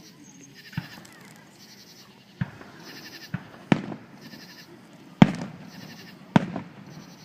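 Fireworks shells bursting in the air: six sharp booms in about six seconds, the loudest about five seconds in, some with a short crackling tail.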